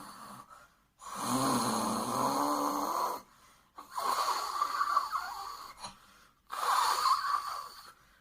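A person snoring: three long snores of about two seconds each, with short pauses for breath between them.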